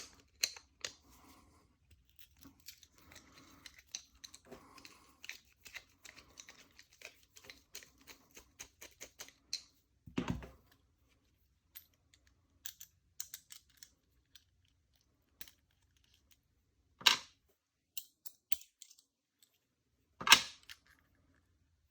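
Small metallic clicks and scrapes of a screwdriver and a padlock being handled while a large Phillips screw is worked out of a Schlage round-body padlock. Three louder knocks come about ten, seventeen and twenty seconds in, the last the loudest.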